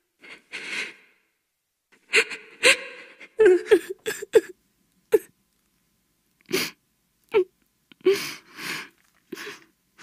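A woman sobbing: a string of short, breathy cries and gasps for breath, coming in uneven bursts.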